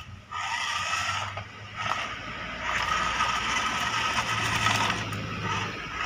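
Small electric motors and plastic gearboxes of a wired remote-control toy loader whirring as it drives and works its loader arm. The whirring drops out briefly about a second and a half in, then runs on, strongest in the middle.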